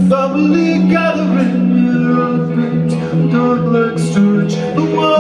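Live rock band playing, with a man singing over sustained low notes that change pitch every second or so.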